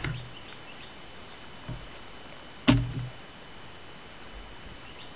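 Blade scraping a deer hide: a few short scraping strokes, the loudest a thump about two and a half seconds in.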